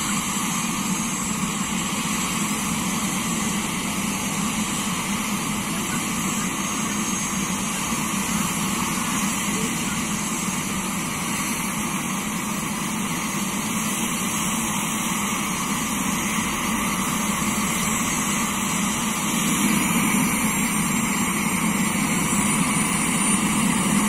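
Eurocopter EC130 turbine helicopter running on the ground: a steady rush with a thin high turbine whine, getting a little louder near the end.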